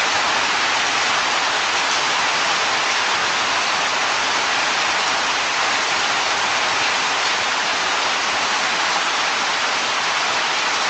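Heavy rain pouring steadily, a dense, even hiss with no breaks, picked up by a Ring security camera's microphone.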